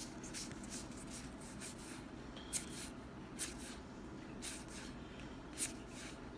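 Trading cards from a freshly opened Magic: The Gathering booster pack being handled and flicked through: a run of soft, short swishes and card flicks, a few of them louder, about a second apart.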